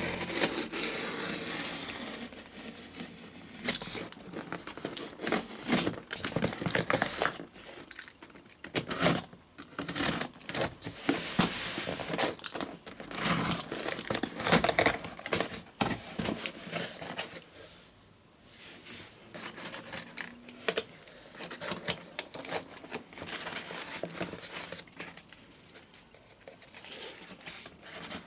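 Irregular rustling, crinkling and tearing of packaging being handled, with many short crackles; it grows quieter and sparser after about 17 seconds.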